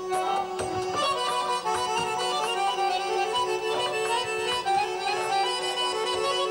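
Two Azerbaijani garmons (qarmon, small button accordions) playing a traditional tune together over a steady held low note.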